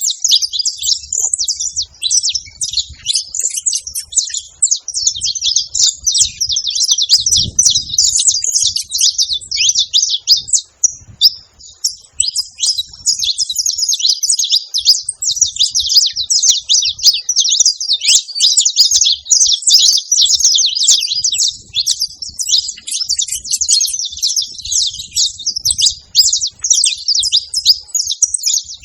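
A flock of saffron finches chirping and chattering together, many overlapping high calls without a break, easing off briefly about eleven seconds in.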